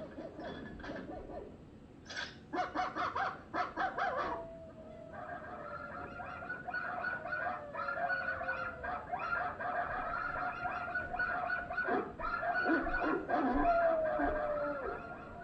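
Cartoon dogs barking in quick bursts, then a chorus of yipping dogs and puppies with a long howl that falls in pitch over it, and a second falling howl near the end. It is heard as a film soundtrack played through a television.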